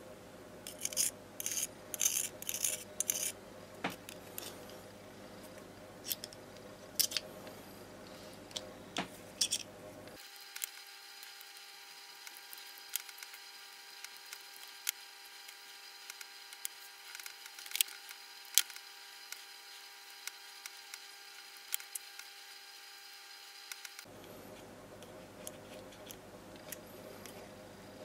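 A thin metal rod scratching and clicking against a metal cigarette lighter as cotton wadding is packed into its fuel chamber. There is a quick run of scratchy scrapes a second or two in, then scattered light clicks.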